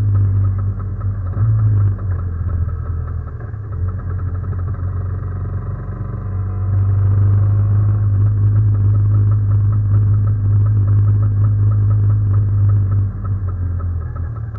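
Vespa scooter's two-stroke single-cylinder engine running steadily while riding, heard from on board the moving scooter. It grows louder about seven seconds in.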